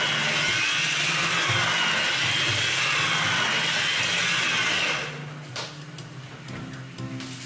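Electric stick mixer with a whisk attachment running in thick cake batter in a stainless steel bowl, a steady motor whine that wavers slightly in pitch. It cuts off about five seconds in, leaving soft guitar music.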